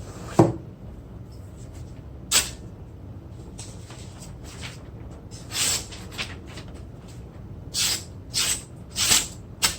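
Steel cleaver being worked against a whetstone: a low knock about half a second in, then several short, irregular scraping strokes.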